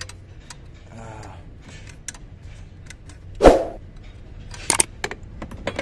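Metal hand tools clicking and tapping on an engine's fuel-line fittings, with one loud knock about three and a half seconds in and a quick run of clicks near the end.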